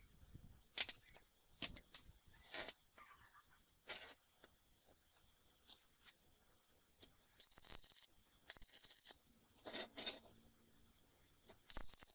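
Small steel parts handled and set down on a metal work surface: scattered sharp clicks and clinks, with two brief scrapes about halfway through.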